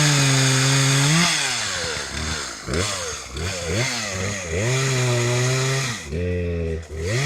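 Chainsaw engine revving up and down repeatedly while cutting a tree. It is held at high revs for about a second at a time, twice, with the pitch dropping back between the throttle pulls.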